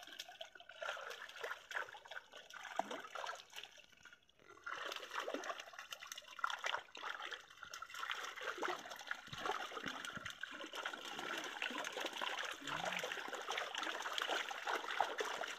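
Shallow water splashing and sloshing as a mass of small silver fish thrash, crowded in a seine net, and hands scoop through them; a dense run of small splashes with a short lull about four seconds in.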